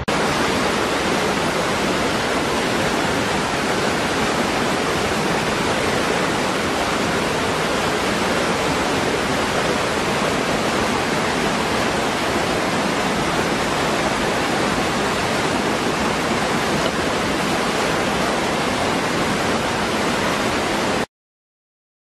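Small waterfall pouring into a rocky pool: a steady rush of falling water that cuts off suddenly about a second before the end.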